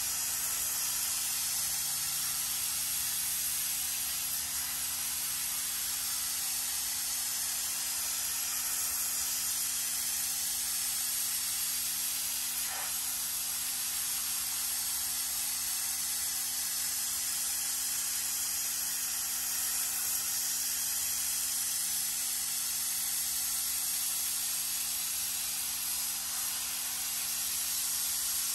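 Steady hiss of a pressure washer's jet spraying water onto a car floor mat.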